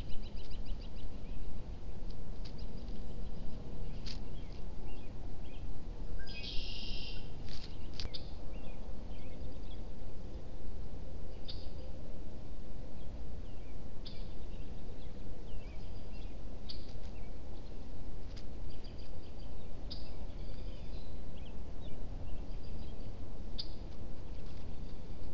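Outdoor ambience picked up by a trail camera's microphone: a steady low background rumble with small birds chirping at intervals, including a quick series of chirps at the start and a louder burst of calls about seven seconds in, plus a few faint clicks.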